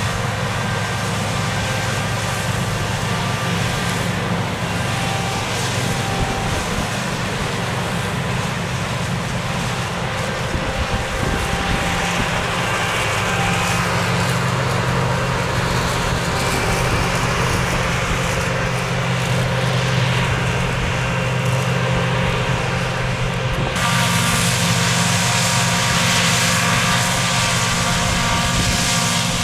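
Fendt 6275 L combine harvester running steadily under load while harvesting barley, its engine and threshing machinery making a constant hum. Near the end the sound changes abruptly and becomes hissier.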